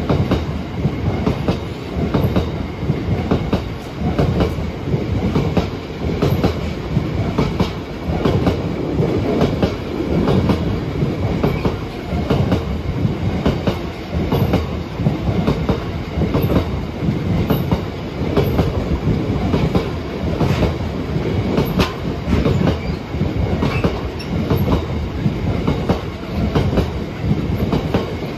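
Freight train wagons rolling past, their wheels clattering over the rail joints in a steady repeating rhythm over a low rumble.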